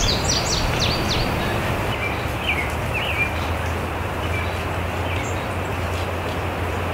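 Small birds chirping: a quick run of short, high, falling chirps in the first second, then a few more about three seconds in, over a steady background hiss with a low hum.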